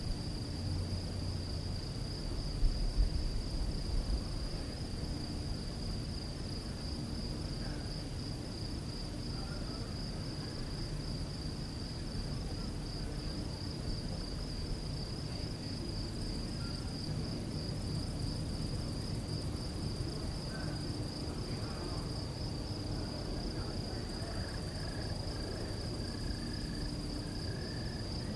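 Crickets chirping in a continuous, finely pulsing high trill, over a low background rumble. A few low thumps come about three seconds in.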